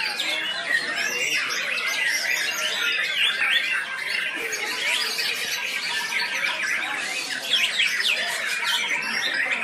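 Many caged songbirds singing at once in competition: a dense, continuous chorus of overlapping chirps, trills and whistles.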